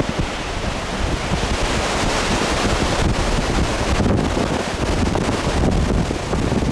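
Strong tornado winds rushing past the vehicle and buffeting the microphone through an open car window, a loud, steady rushing noise.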